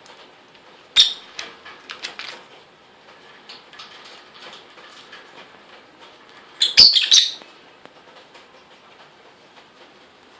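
Lovebird tearing paper with its beak: two bursts of sharp rustling and ripping, about a second in and around seven seconds in, with small clicks and rustles between.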